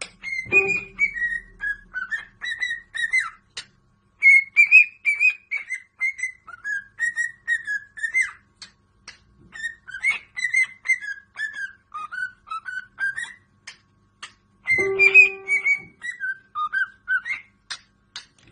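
Parrot whistling a tune: a long string of short whistled notes sliding up and down in pitch, with two brief pauses.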